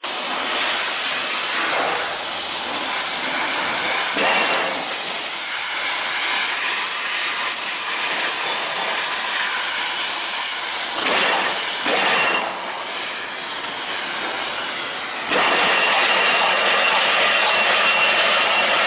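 Positive-and-negative twist barbed wire machine running: a continuous mechanical noise with a hiss from its twisting and barb-winding mechanism. It gets louder about fifteen seconds in.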